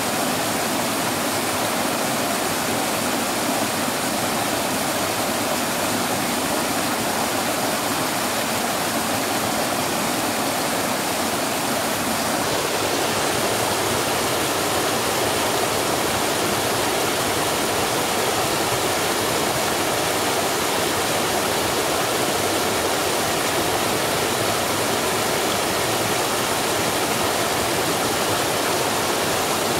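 Small waterfall in a little stream, water falling and foaming with a steady, heavy rush. About twelve seconds in, the rush shifts slightly in character.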